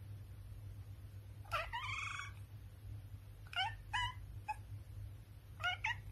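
British shorthair cat meowing: one longer meow about a second and a half in, then five short meows, mostly in quick pairs.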